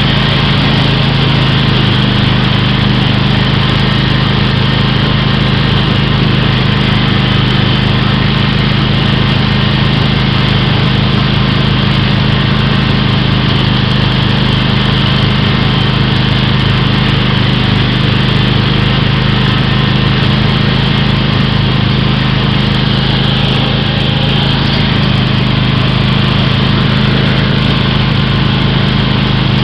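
Small single-engine riding lawn mower running steadily at an even speed while driving along, loud and close.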